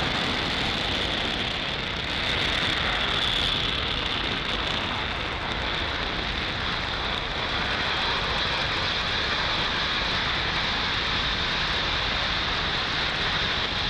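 Falcon 9 first stage with nine Merlin 1D engines, running steadily as the rocket climbs: a continuous, even rushing noise with no breaks. Stage 1 propulsion is nominal.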